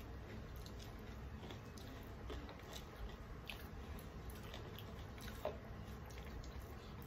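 Faint eating sounds: fingers mixing rice and curry on plastic plates and soft chewing, with scattered small clicks and one sharper tap about five and a half seconds in, over a low steady hum.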